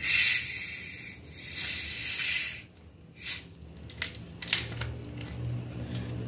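The cap of a large plastic soft-drink bottle being slowly unscrewed, letting the carbonation gas escape in two hissing spurts over the first couple of seconds, followed by a few light clicks.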